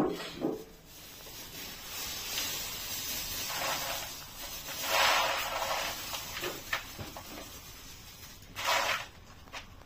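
Plastic bag crinkling as small dried legumes are poured and shaken out of it into a plastic bowl, with the loudest rustle about five seconds in and a short burst near the end.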